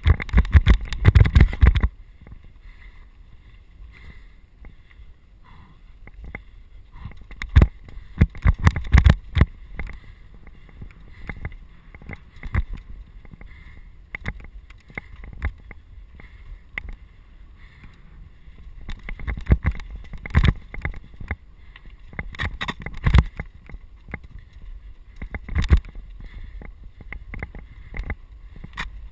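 Mountain bike riding over a rocky dirt trail, with a steady low rumble. Clusters of rattles and knocks from the bike and camera mount come over rough ground at the start, at about eight seconds, around twenty seconds and at about twenty-six seconds.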